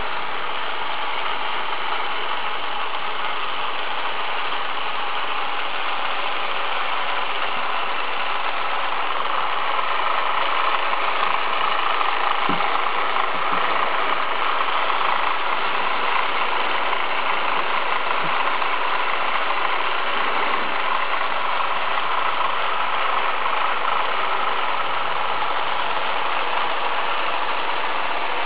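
Steady mechanical whirring of a running HO-scale model bobsleigh ride, its small motor and track mechanism turning continuously, a little louder from about ten seconds in.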